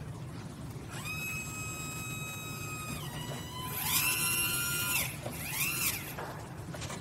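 A Stryker battery-powered ambulance cot's lift motor whines as it raises a seated person. A steady whine lasts about two seconds, then a louder whine shifts in pitch for about two seconds, and a short rising-then-falling whine follows near the end.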